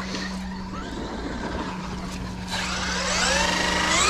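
Traxxas Maxx 4S RC monster truck's electric motor and drivetrain spinning the wheels up in the air, a whine that rises steadily in pitch over the last second and a half, over a low steady hum.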